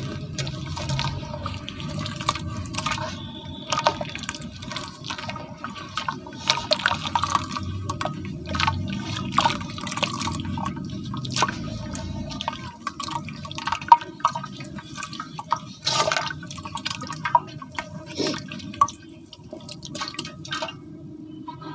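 Wet cement lumps squeezed, crumbled and stirred by hand in a basin of water: squishing, sloshing and dripping, with frequent small splashes. It settles to quieter stirring near the end.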